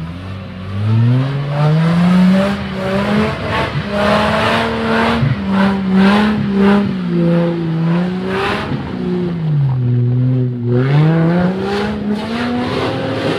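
Supercharged Toyota Land Cruiser 80-series engine revving hard under load as the truck claws up a rutted mud hill. The revs climb, hold with small wavers, drop about ten seconds in and rise again. Bursts of scrabbling noise come from the tyres spinning in the dirt.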